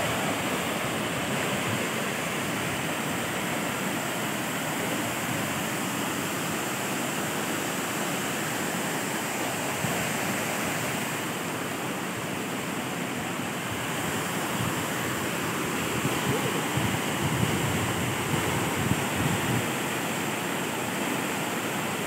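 Waterfall cascading over granite rock into a pool: a steady rush of falling water. A little past the middle it grows louder and rougher for a few seconds.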